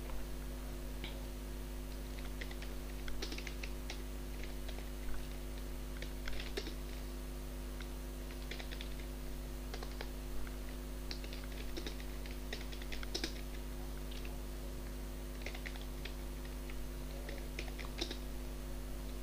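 Computer keyboard typing in irregular bursts of keystrokes, over a steady low electrical hum.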